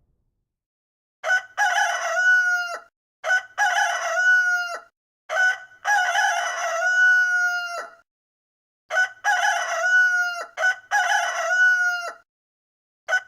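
Rooster crowing, about five cock-a-doodle-doos in a row with short gaps between them, the third held longest; another crow starts at the very end.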